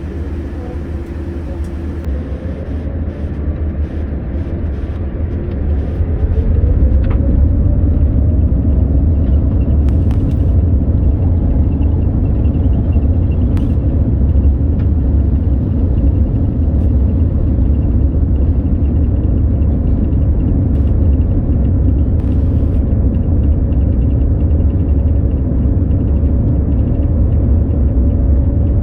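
Boeing 787 jet engines spooling up to takeoff thrust: a deep rumble swells and a whine climbs in pitch over the first six seconds or so, then both hold steady at full power.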